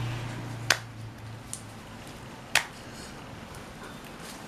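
White glue slime being stretched and pulled, giving two sharp snapping pops about two seconds apart with a fainter click between them.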